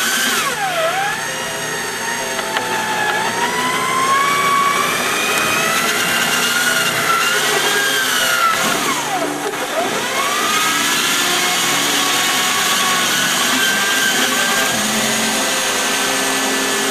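A small electric motor whining steadily, its pitch sagging sharply twice under load and then climbing back.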